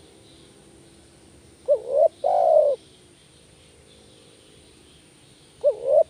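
Spotted dove cooing: about two seconds in, one phrase of two quick rising notes followed by a longer held coo, and the next phrase beginning right at the end.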